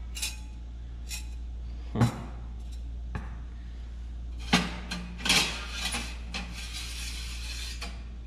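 Metal stove parts clinking and knocking against each other as they are handled and fitted together: a few separate knocks with a short metallic ring, the loudest about 2 s in and again about 4.5 s in, with a small cluster just after.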